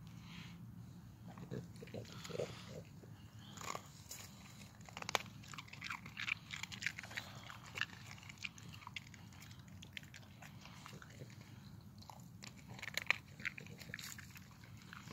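A dog biting and crunching chunks of ice, in irregular sharp cracks and chews. The loudest crunches come about five seconds in and again near the end.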